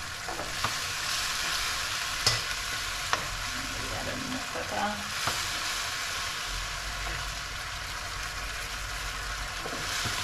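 Sweet and sour sauce sizzling in a hot pan while it is stirred, the sugar and cornstarch mixture heating up to thicken. A few sharp clicks are heard, typical of a utensil tapping the pan.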